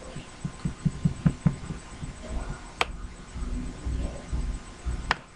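Computer keyboard and mouse clicks while code is pasted and selected: a quick run of soft taps in the first second and a half, then two sharp single clicks, one near the middle and one near the end.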